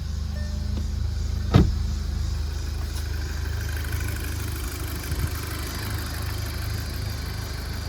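A 2012 VW Golf R's turbocharged 2.0-litre four-cylinder engine idling steadily. A single short electronic beep sounds right at the start, and one sharp click comes about one and a half seconds in.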